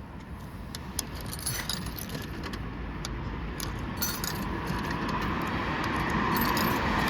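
Coins clinking and jingling in short bursts as they are handled to pay at a vending machine. Traffic noise swells toward the end as a car approaches.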